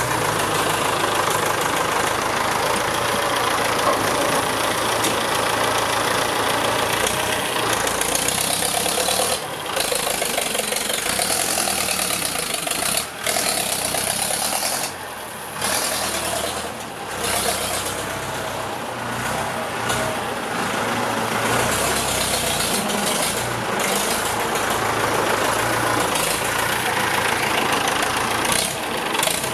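Ford 6610 tractor's four-cylinder diesel engine running steadily under load as its front blade pushes and grades soil. The engine level drops briefly a few times around the middle.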